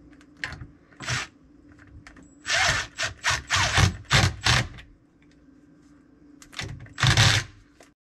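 Milwaukee cordless driver run in short trigger bursts while driving fasteners: two brief bursts, then a run of about six quick bursts in the middle, and a longer one near the end.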